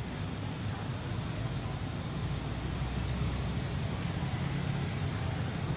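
Steady low rumble of distant motor traffic, an engine-like hum with no clear events.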